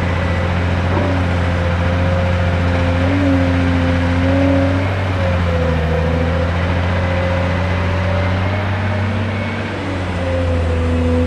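Cat 385C hydraulic excavator's diesel engine running under working load. It gives a steady, loud drone whose pitch dips and recovers slightly a few times as the load changes.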